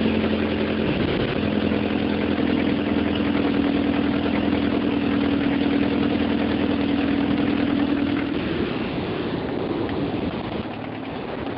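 1978 Porsche 924's Audi-built 2.0-litre four-cylinder engine idling with an odd noise that the owner thinks may be an exhaust leak at the manifold-to-pipe joint, where a bolt is broken off, or else something wrong inside the engine; octane booster made no difference to it. Its steady note weakens about eight seconds in.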